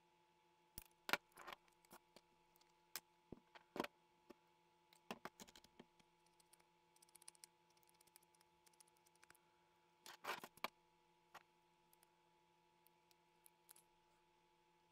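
Thin plastic pieces being handled and worked by hand, giving scattered clicks and crackles, with the sharpest snaps about one, four and ten seconds in, over a faint steady hum.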